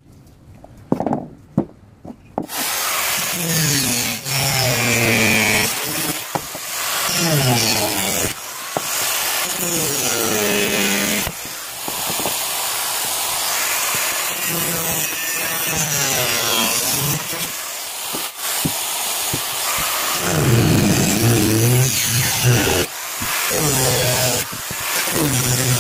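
A few knocks of coconut shells set down on a wooden board. Then, about two seconds in, an angle grinder starts working a coconut shell and runs on, its motor pitch dipping and recovering over and over as the disc is pressed into the shell and eased off.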